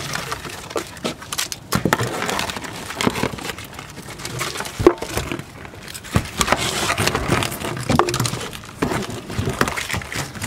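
Handling noise: irregular clicks, knocks and crinkles as long metal tongs and a plastic water bottle tied to a cord are worked over a plastic boat deck, with one sharp click about five seconds in.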